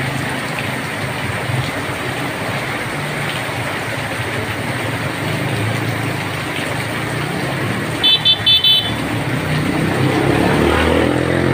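Heavy rain falling steadily on a wet road, with motor traffic hissing and humming past. About eight seconds in, a vehicle horn gives four quick short toots, and near the end a passing engine rises in pitch as it approaches.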